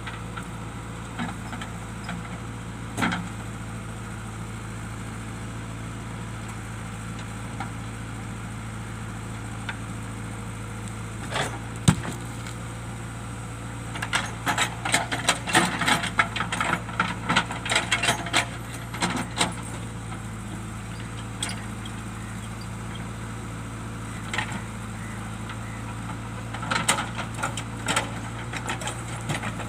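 JCB backhoe loader's diesel engine running steadily, with occasional knocks and bursts of clattering from the bucket striking and scraping rocks in the soil. The longest burst comes about halfway through and another near the end.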